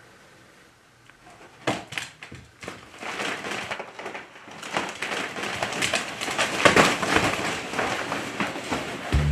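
A stack of large inflatable plastic gummy-bear toys being pawed at and knocked over by a beagle. After a quiet first second and a half comes a dense run of plastic crackling and rustling with many soft knocks as the toys rub together and tumble down.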